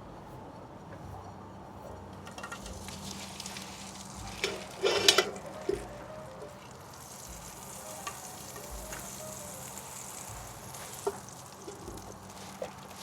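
Food sizzling in a pan, with a short clatter of a utensil knocking against the pan about five seconds in and a few lighter clicks later.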